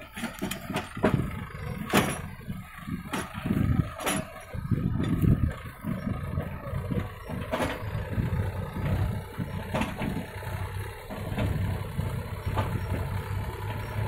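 Mahindra tractor's diesel engine running as it hauls a trolley loaded with mud at low speed, with a few sharp knocks along the way.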